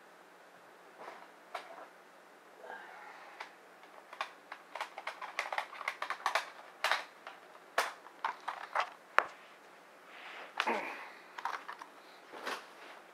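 Plastic cassette tapes and cases clicking and clattering as someone rummages through them, with a quick run of sharp clicks in the middle and some rustling near the end.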